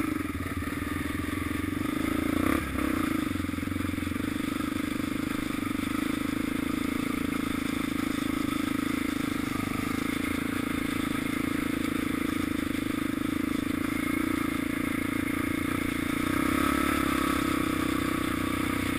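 Quad (ATV) engine running steadily at an even pace as it rides along gravel and leaves, with one short knock about two and a half seconds in.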